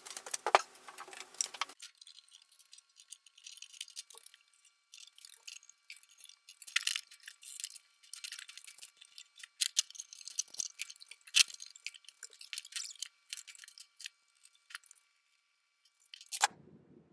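Sped-up run of small metallic clicks, clinks and rattles of screws and hand tools as the wooden slats are unscrewed from a cast iron garden bench frame. A fuller, lower shuffle comes in the first two seconds, and the loudest clinks fall about halfway through.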